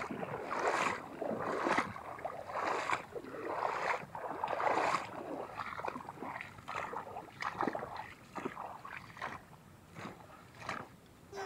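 Footsteps on muddy, sandy and grassy ground, about one step a second, each a brief rustle, growing fainter toward the end.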